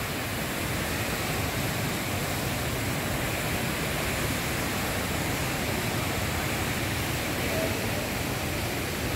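Steady rushing of the Rain Vortex, the indoor waterfall pouring down through Jewel's glass dome, an even, unbroken noise.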